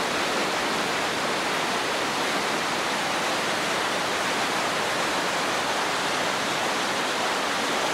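Whitewater rapids rushing over and between boulders, a steady, even rush of water.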